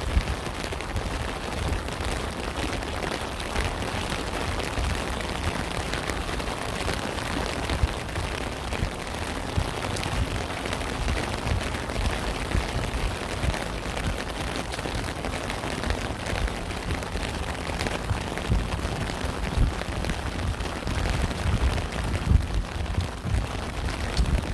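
Steady rain falling, a dense hiss of many drops, with an uneven low rumble underneath that grows stronger near the end.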